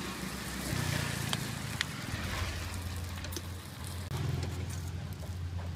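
A motor engine running steadily close by, under a faint hiss, with a few light clicks.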